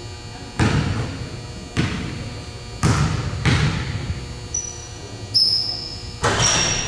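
A basketball bouncing on a hardwood gym floor about six times, roughly once a second, with echo in the hall, as it is dribbled at the free-throw line before a shot. Short high squeaks come in near the end.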